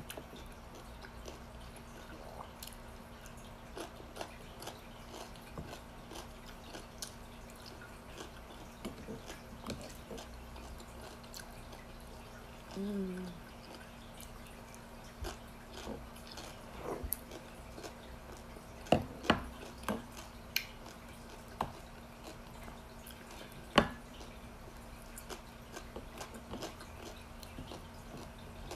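Quiet sounds of a person eating a meal by hand: soft chewing and small clicks. A short hummed voice sound comes about halfway through, and a few sharp clicks stand out a little later.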